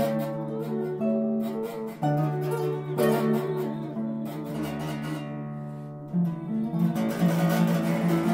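Harp playing: plucked notes ringing over low bass notes. A chord about three seconds in rings out and slowly fades, then quicker plucked notes come in near the end.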